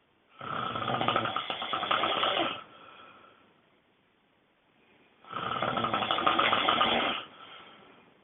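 A person snoring extremely loudly: two long snores about five seconds apart, each trailing off into a softer tail.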